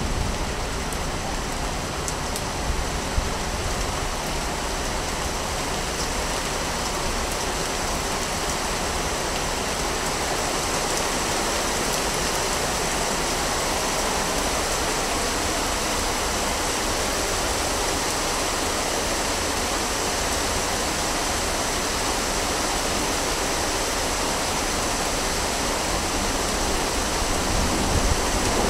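Steady rushing of flowing water, an even noise without breaks.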